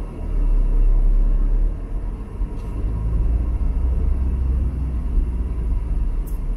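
A car driving slowly in traffic: a steady low rumble of engine and road.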